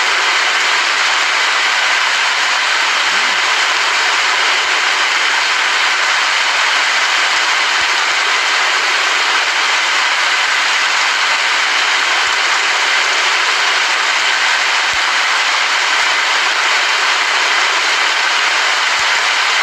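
Steady, heavy rain falling, an even, unbroken hiss.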